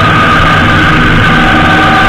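Honda GL1800 Gold Wing's flat-six engine running at a steady road speed, heard through a low fairing-mounted action camera as one loud, constant mix of engine, tyre and wind noise. A couple of steady high whistling tones sit on top.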